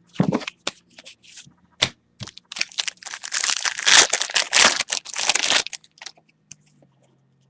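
Foil wrapper of a pack of football trading cards crinkling as it is torn open and handled, with scattered clicks at first and a few seconds of dense, loud crackling in the middle.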